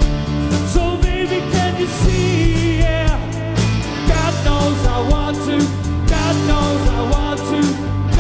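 Live band music through a festival stage sound system: drums, bass and guitars playing steadily, with a voice singing over them.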